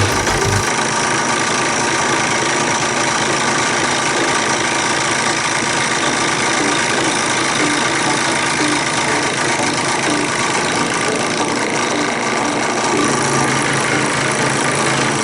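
Drill press motor running steadily with a router bit spinning in the chuck, a constant whine with many steady tones over a mechanical rush.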